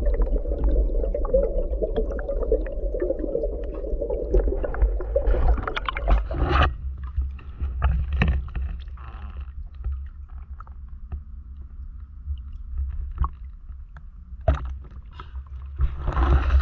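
Underwater rumble and crackle picked up by a head-mounted action camera during a dive. About six and a half seconds in it changes to the surface: water sloshing and splashing around the swimmer with a low rumble, and a louder splash near the end.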